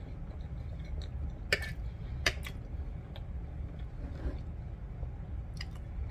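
A metal fork clicking against a ceramic dinner plate while picking up food: a few sharp, separate clinks over a steady low hum.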